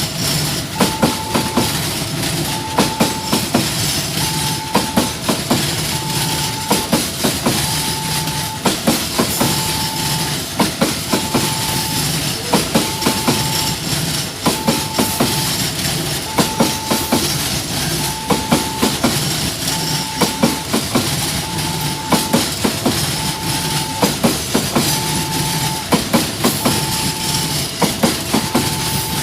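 A train rolling past, its wheels clicking over the rail joints in a steady clickety-clack, while an electronic warning tone, typical of a level-crossing alarm, beeps on and off about once every two seconds.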